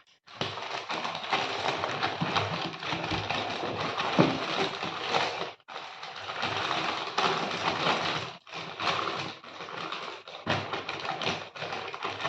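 Packing being torn open and pulled off a boxed rotary hammer drill: continuous rustling, crinkling and ripping in stretches, with two brief pauses.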